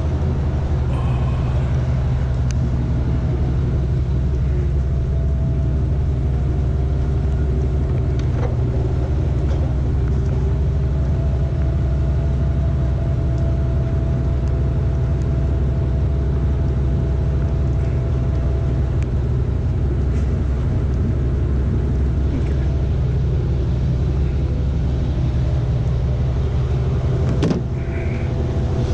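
Vehicle engine idling steadily, with a single sharp click near the end.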